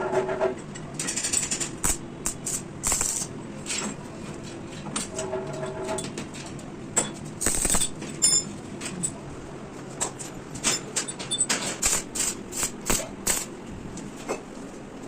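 Irregular knocks, taps and short scrapes of metal being worked and handled, coming at uneven intervals, with a few longer rasping strokes.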